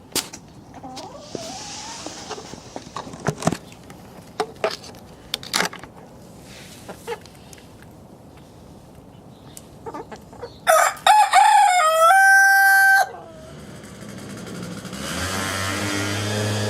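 Rooster crowing once, loud, for about two seconds, about eleven seconds in, after scattered light knocks and taps. Music comes in near the end.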